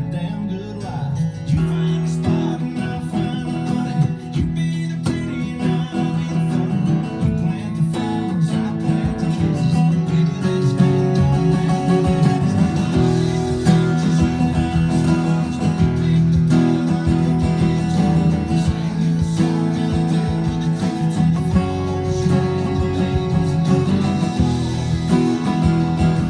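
Acoustic guitar strummed in chords.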